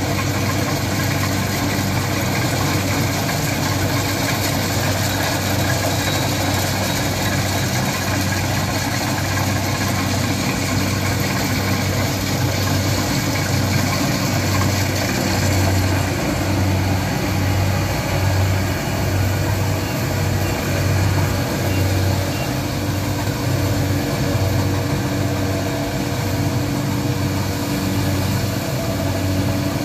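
Kubota DC-70 combine harvester running steadily while harvesting, a constant diesel engine hum over a broad rush of machinery noise. From about halfway through, the low hum takes on a slow, regular pulsing.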